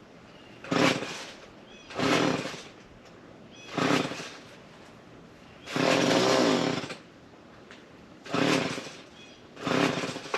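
Small chainsaw cutting in six short bursts, each cut under a second except a longer one of about a second and a half in the middle, with near quiet between bursts.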